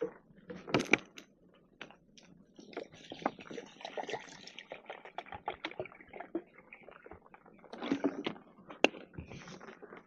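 Irregular clicks, knocks and rustling of objects being handled, with a louder knock near the end.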